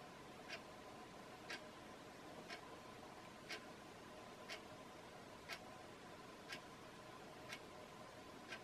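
Near silence with a faint, sharp tick about once a second, evenly spaced like a clock, over a faint steady hum.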